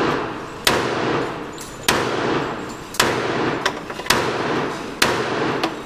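Handgun fired five times, about one shot a second, each crack followed by a long echo. A few fainter sharp cracks fall between the shots.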